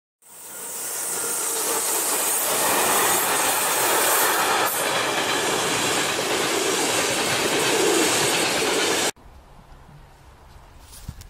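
Train running on rails. It fades in at the start and cuts off abruptly about nine seconds in.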